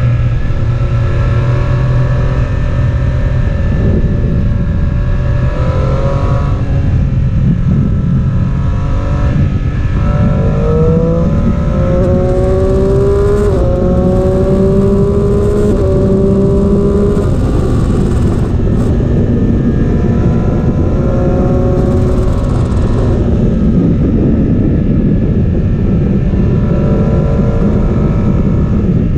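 Motorcycle engine heard from on board the rider's own bike, rising in pitch several times as it accelerates up through the gears, over heavy wind rush on the microphone.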